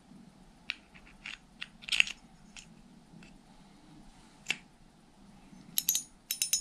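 Spinning reel being reassembled by hand: scattered light clicks and taps of metal and plastic parts as the spool is fitted onto the reel, then a quick run of sharp clicks near the end.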